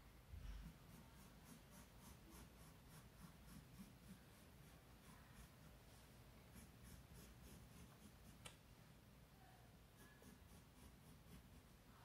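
Wooden pencil scratching on sketchbook paper in many quick, faint, repeated strokes as a spiral is drawn. A low thump just after the start, and a single click about eight seconds in.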